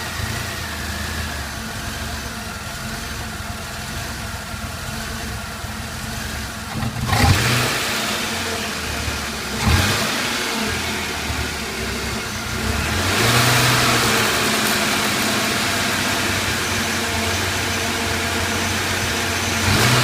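Chevy S-10 Blazer engine running with the rough idle that the owner complains of. It is revved briefly about seven and ten seconds in, then held at a higher speed for several seconds from about thirteen seconds.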